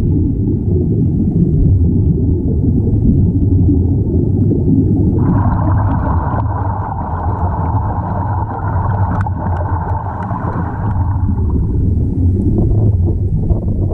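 Underwater rumble of moving water heard through a submerged camera. A higher hiss of rising air bubbles from the divers' gear joins it from about five to eleven seconds in.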